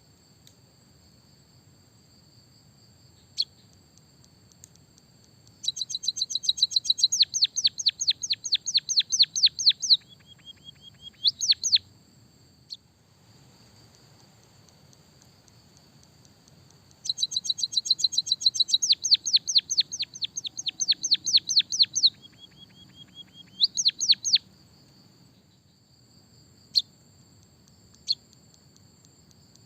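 White-headed munia (emprit kaji) singing a canary-style song: two long bouts of rapid, high, repeated chirps, about six a second, each ending in a short low note and a couple of rising notes, with single sharp chirps between them. A thin steady high tone runs under the quiet stretches.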